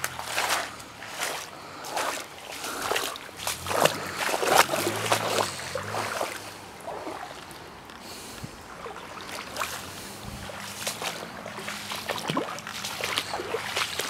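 Footsteps on a rocky, gravelly creek bed, a step about every half second, with scuffs and brushing between them.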